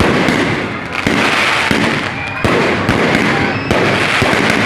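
Fireworks going off in a dense, rapid crackle packed with sharp bangs, the loudness jumping up with a fresh volley every second or so.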